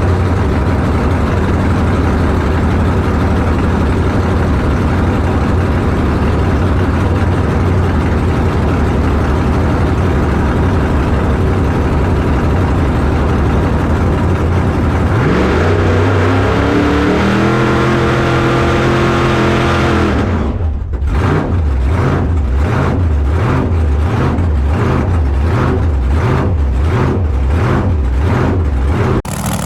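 Drag car's engine running hard and steady, then revving with a rising pitch about halfway through. It settles into a rhythmic, lumpy idle that surges about one and a half times a second.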